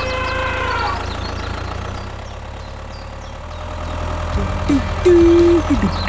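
Tractor engine idling steadily with a low rumble, with a drawn-out falling tone fading out in the first second. Bouncy music comes in about four seconds in and is loudest near the end.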